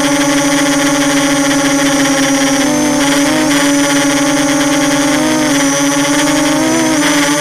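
QAV250 250-size quadcopter's brushless motors and propellers heard from the onboard camera: a loud, steady, high whine that wavers briefly in pitch a few times.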